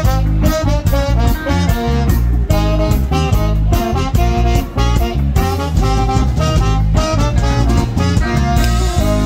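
Live band music: trombone and saxophone playing a horn line together over electric guitar, bass and drums with a steady beat.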